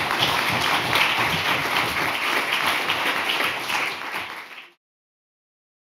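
Audience applauding: dense, steady clapping from many people that cuts off suddenly.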